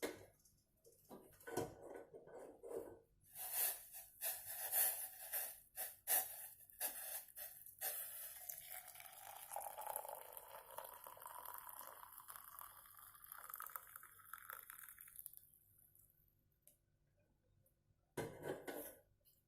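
A run of light clicks and knocks of glassware, then liquid poured steadily into a glass for about seven seconds, the pitch of the pour rising as the glass fills; one short clatter near the end.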